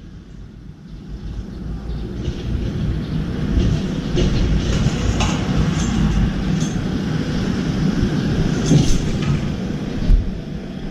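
Steady low rumbling background noise that swells over the first two seconds, with a few faint brief clicks and a short thump about ten seconds in.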